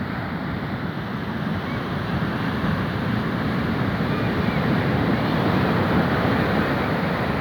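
Steady rush of sea waves and surf, with wind buffeting the microphone, growing a little louder toward the end.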